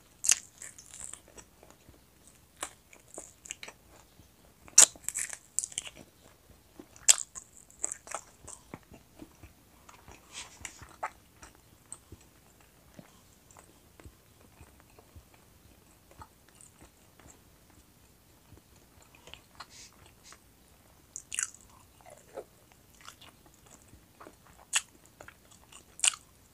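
Close-miked biting and chewing of roast chicken wings, the crisp skin crunching in irregular bursts. The loudest crunches come about five and seven seconds in and again near the end, with a quieter stretch in the middle.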